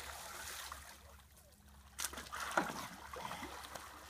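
Muddy pond water splashing and sloshing around a person wading waist-deep, with a lull, then sharp splashes from about two seconds in, the loudest a little after.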